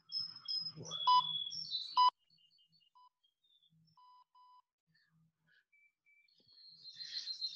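Short electronic beeps, two loud ones about a second apart near the start, then several fainter ones, with birds chirping around them.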